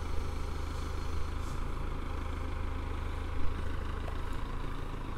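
A Matbro Teleshift telehandler and a bulk grain lorry running steadily while oats are tipped from the loader bucket into the trailer. A brief louder bump about three and a half seconds in.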